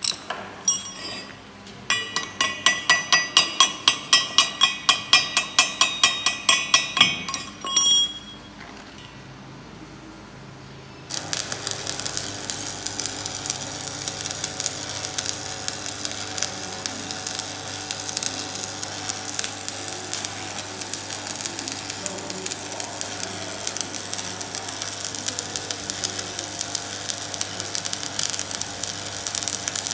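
Rapid ringing taps on metal, about four a second for some six seconds. After a short pause, electric arc welding starts about eleven seconds in: a steady crackling sizzle.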